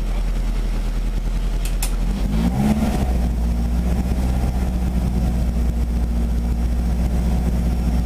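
VW Golf Mk1 GTI's four-cylinder engine idling, heard from inside the cabin, with one short blip of the throttle about two and a half seconds in, then settling back to a steady idle. A couple of light clicks come just before the blip.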